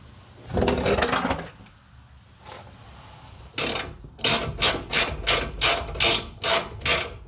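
Hand tool working a fitting on the truck's air tanks: one longer scrape about a second in, then a quick run of short rasping strokes, about three a second.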